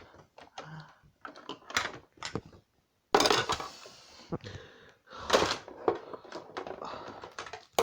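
Plastic wrestling action figures being handled and knocked together: a string of small clicks and knocks, with two longer rushes of noise about three and five seconds in.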